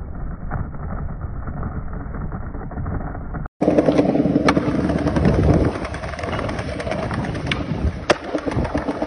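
Skateboard wheels rolling on pavement, a muffled rumble at first, then louder after a brief cut. Several sharp wooden clacks of the board being popped and hitting the ground, the last near the end.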